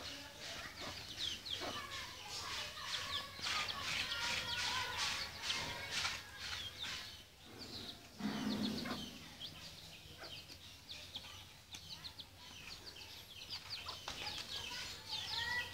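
Birds chirping steadily, a dense run of short, high chirps that each fall in pitch, over the scratching of a spoon scraping flesh from a green coconut shell.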